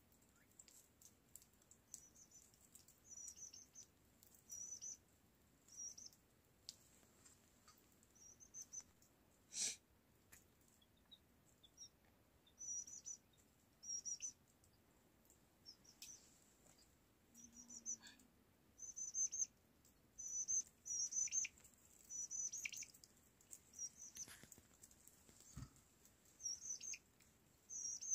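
A small bird chirping over and over in short, high, quavering calls. A single sharp click comes about a third of the way through.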